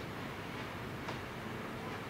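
Steady low background rumble with a single faint click about a second in.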